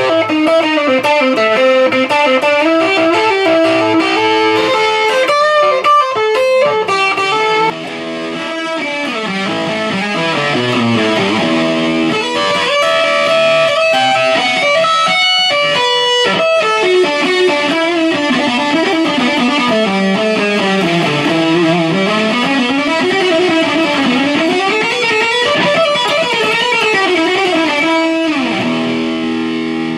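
Gibson Les Paul Special electric guitar played as a post-restoration test: a run of single-note melodic lines with bent and sliding notes. The tone changes suddenly about eight seconds in.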